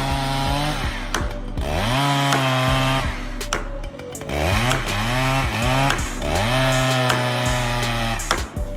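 Gasoline chainsaw revving over and over: the engine climbs to full speed, holds there for about a second, then drops back, several times in a row.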